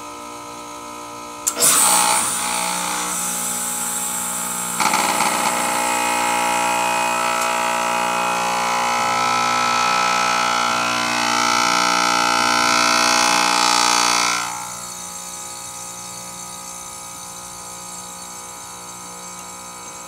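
Carrier heat pump outdoor unit with its compressor humming steadily. About a second and a half in, the reversing valve shifts with a sudden loud whoosh of rushing refrigerant that runs for about thirteen seconds, then drops back to the compressor hum. This is the unit switching into cooling mode to start a normal defrost cycle.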